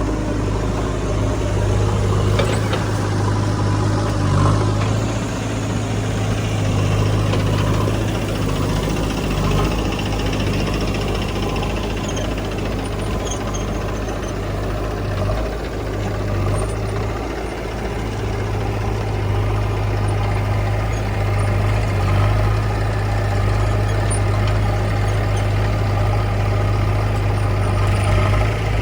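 Heavy diesel engine of a backhoe loader or tractor running steadily with a deep, even hum.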